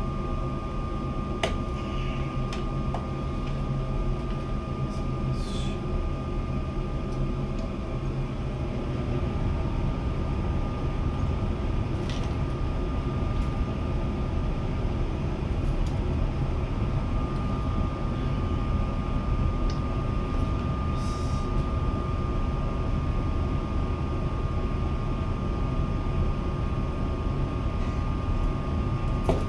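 A steady mechanical drone with a constant high whine over it, with a few small clicks and scrapes here and there.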